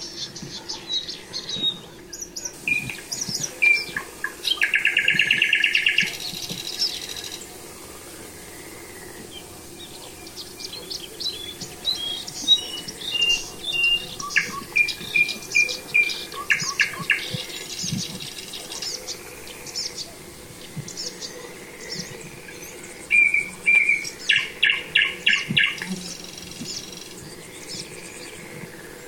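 Songbirds singing: many short chirps and whistled notes, with rapid trills about five seconds in and again near the end.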